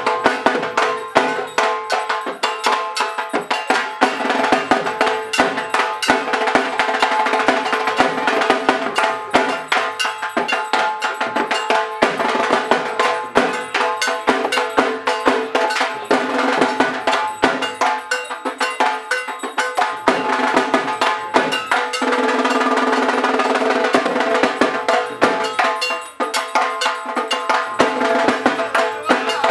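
Two dhaks, the large Bengali barrel drums, beaten fast with thin sticks in a dense, unbroken rhythm, over a steady metallic ringing.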